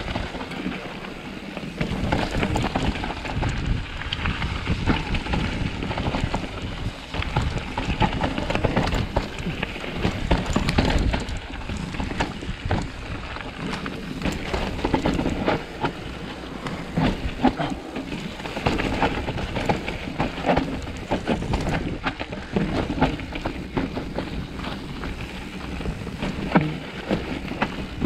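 Trek Slash 8 mountain bike riding down a wet trail: a steady rush of tyre and wind noise with constant rattling clicks and knocks from the bike over bumps.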